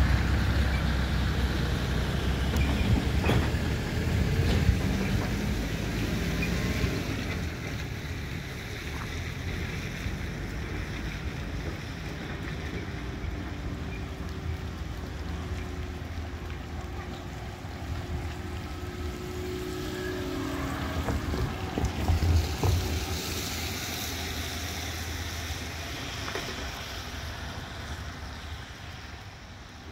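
GWR Class 165 diesel multiple unit running away down the line, its engine and wheel rumble fading steadily into the distance.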